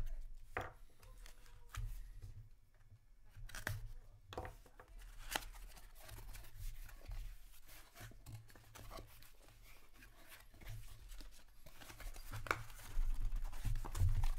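A blade slitting packing tape on a small cardboard box, then the cardboard flaps being pulled open and handled: scattered short scrapes, rips and clicks, busiest and loudest near the end.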